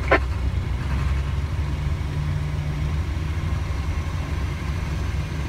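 Fire truck engine running, heard from inside the cab as the truck drives slowly: a steady low drone.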